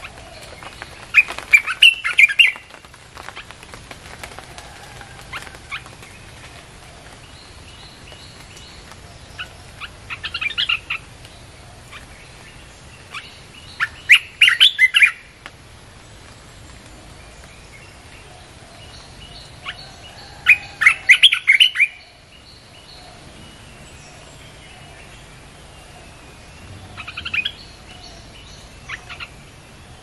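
Olive-winged bulbul song: five loud bursts of quick, chattering notes spread across the stretch, each lasting about one to two seconds.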